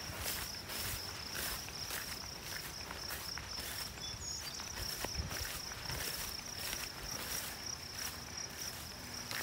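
Footsteps swishing through tall grass, about two steps a second, with a steady high-pitched insect trill running underneath.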